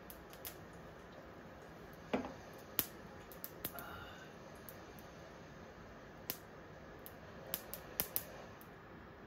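Scattered small clicks and pops, a few louder ones, over a faint steady hiss. These are camp-cooking sounds: mentaiko (spicy cod roe) heating beside rice simmering in a beer can.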